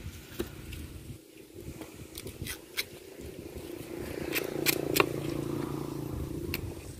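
Knife filleting a tuna: scraping and a series of sharp clicks as the blade works along the fish. A steady low hum joins in about four seconds in.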